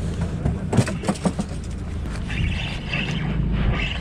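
Boat engine running steadily with a low hum, with a few sharp knocks about a second in.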